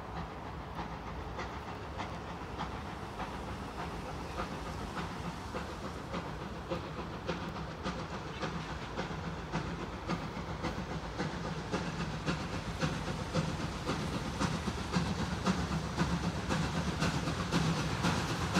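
Ol49 steam locomotive approaching with its train: a regular beat of exhaust chuffs over a steam hiss, growing steadily louder as it nears.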